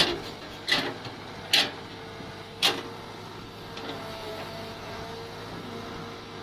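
Mini excavator running with a steady hum, broken by four sharp clacks in the first three seconds as it works.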